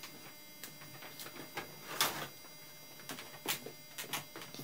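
Scattered faint clicks and light taps over a low steady background, the loudest about two seconds in.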